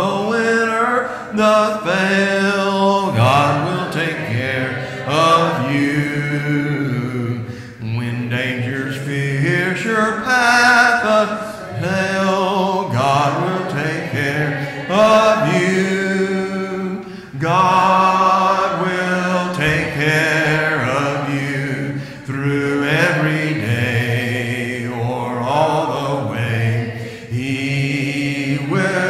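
Unaccompanied hymn singing by voices, without instruments, moving through slow notes that are each held a second or more.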